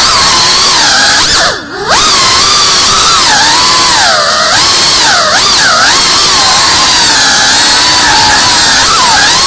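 Small FPV quadcopter's electric motors whining, the pitch rising and falling as the throttle changes. About one and a half seconds in the motors briefly throttle back, and the whine drops low and quiet before climbing again.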